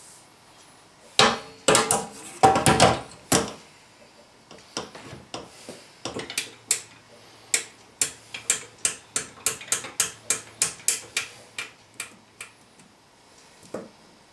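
Manual sausage stuffer at work filling casings: a few heavier knocks, then a steady run of sharp mechanical clicks, about three a second.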